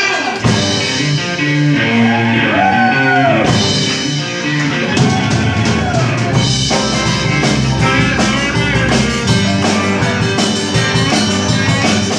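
Live rock band playing: electric guitars over a drum kit, with keyboards.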